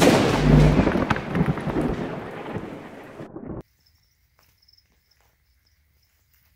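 Logo-intro sound effect: a thunder-like rumbling crash that fades over about three and a half seconds and then cuts off abruptly. After it, faint cricket chirping from crickets kept in lizard tanks.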